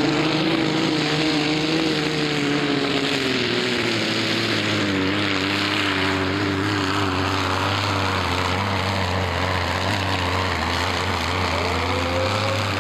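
Supercharged engine of a modified pulling tractor at full throttle under heavy load, dragging a weight-transfer sled. The revs hold high, sag slowly as the sled's weight builds, and climb again near the end of the pull.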